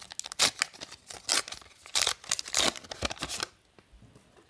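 A 1990-91 Upper Deck hockey card pack being torn open, its wrapper ripping and crinkling in a quick run of short rips that stops about three and a half seconds in.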